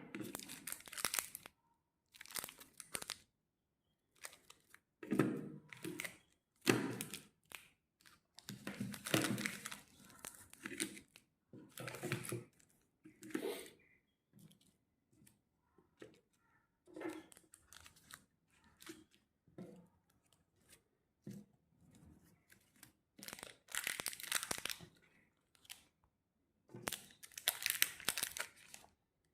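Candy and chocolate wrappers being torn open and crinkled, in irregular bursts with short pauses between.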